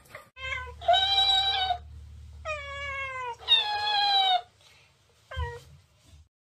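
A series of meows: a few short ones, then three long drawn-out calls, the middle one sliding down in pitch, and a last short falling meow. A low hum from the dancing cactus toy's motor runs under the long calls and stops with them.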